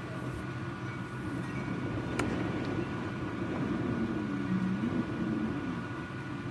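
Severe thunderstorm: a steady low roar of wind and heavy rain, with a single sharp click about two seconds in.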